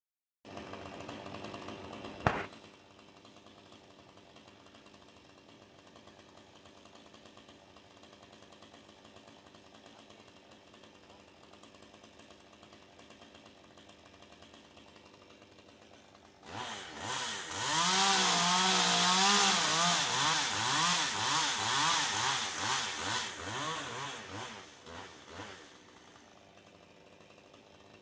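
Chainsaw up in a tree cutting limbs. It runs faintly at first, with a sharp knock about two seconds in. About sixteen seconds in it revs to full throttle and runs loudly for about ten seconds, its pitch wavering up and down as it cuts, then drops back.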